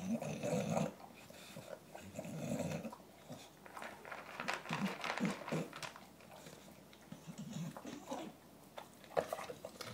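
English bulldog eating dry kibble from a plastic dish: crunching and chewing, broken by noisy breaths through its nose in the first few seconds.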